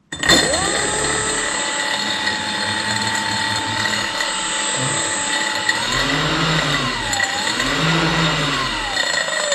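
An electric fin thruster's 65161 brushless motor spinning its ducted propeller in the air gives a high whine. It spins up quickly and holds steady, then rises and falls twice as the throttle is worked, and winds down near the end.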